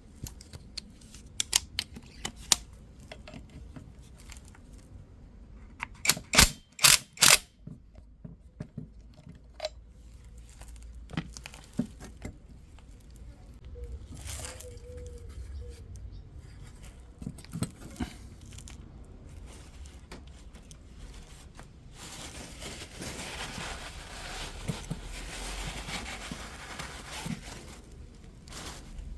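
Hand tools and metal parts being handled during turbocharger work: scattered clicks and clinks, a quick run of four sharp knocks about six seconds in, and a stretch of steady scraping noise near the end.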